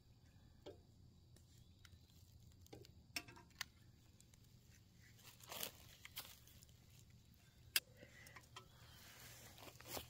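Near silence: a faint low hum with scattered small clicks and crackles, the sharpest about eight seconds in.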